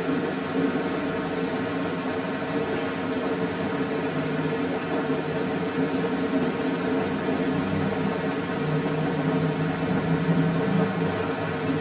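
Steady mechanical whirring hum with a constant drone and an even background hiss.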